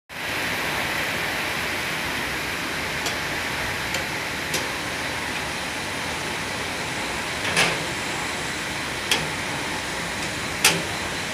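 Steady rushing noise of a running dissolved air flotation (DAF) unit in wastewater treatment, with about six short sharp clicks scattered through, the loudest near the middle and near the end.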